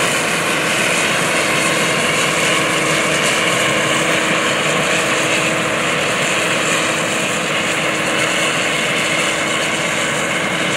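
New Holland TF46 combine harvester running steadily while cutting and threshing barley: a loud, constant machine noise with a steady hum underneath, easing slightly in the second half as the combine moves away.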